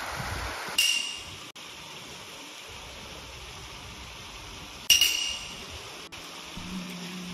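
Two short, bright chime-like pings about four seconds apart, each a clear ringing tone that dies away within about half a second, over a steady background hiss.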